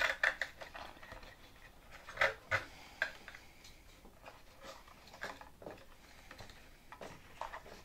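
Scattered small clicks, scrapes and rustles of hands working Velcro straps into a model airplane's wooden fuel-tank bay, with a few louder scuffs about two to three seconds in and again about five seconds in.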